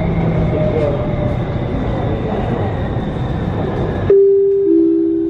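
Elevated metro train running, a steady rumble heard from inside the carriage. About four seconds in the rumble cuts off abruptly and a two-note falling chime sounds: the onboard chime that comes before a station announcement.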